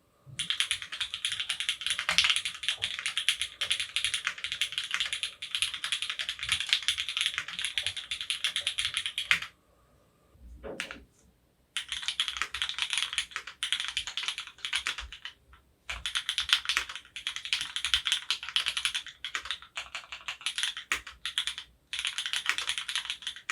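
Fast, continuous typing on an F1-8X gasket-mount mechanical keyboard with retooled Cherry MX Black linear switches, lubed with Krytox 205g0, on an aluminium plate. The keystrokes come in dense runs, with a pause of about two seconds near the middle and brief breaks later.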